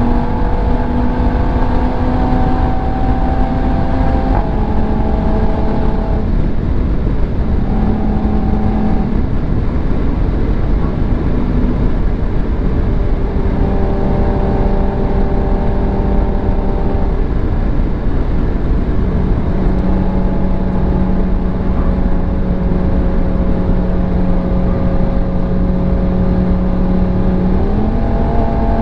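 A sports car driving fast on a motorway, heard from inside the cabin: steady tyre and wind noise under a droning engine hum. The hum holds at one pitch for a few seconds at a time, shifts between pitches, and rises near the end.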